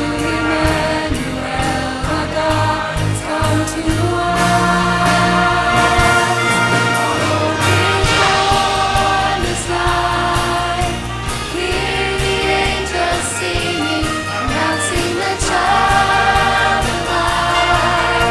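Choir singing a Christmas song with orchestral accompaniment, in sustained, full-voiced chords over a steady bass.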